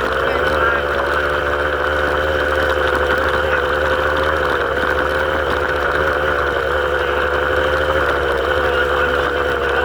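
A vehicle engine running at a steady speed, its pitch wavering slightly.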